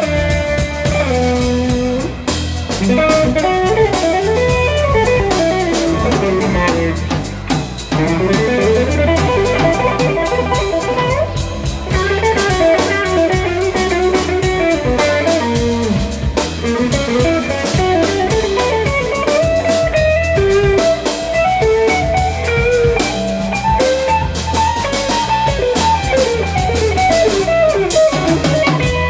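An instrumental trio of electric guitar, electric bass and drum kit playing live. The electric guitar plays a lead line of quick single notes over the bass and drums.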